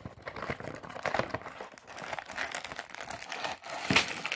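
Cardboard Lego box being opened and emptied, the plastic bags of bricks inside crinkling continuously as they are handled and slide out. The loudest moment is a sharp crinkling thump about four seconds in as the bags tumble from the box.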